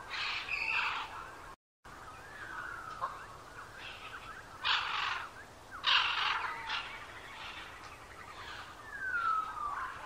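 Several wild birds calling: scattered chirps, two loud harsh calls about halfway through, and a clear whistle sliding downward near the end. The sound cuts out completely for a split second about one and a half seconds in.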